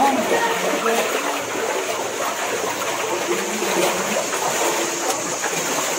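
Spring water flowing and splashing along a narrow tunnel as people wade through it: a steady rushing.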